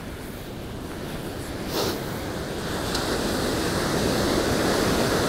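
Ocean surf breaking and washing up a dark sand beach, a steady rush that swells louder in the second half as a wave comes in. A brief scuff about two seconds in.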